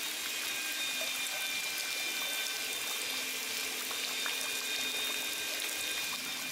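Steady rush of water running and pouring into a pool, even and unbroken, with faint steady high tones over it.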